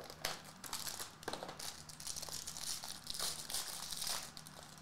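Foil trading-card pack crinkling and tearing as it is opened by hand, with small irregular crackles and clicks.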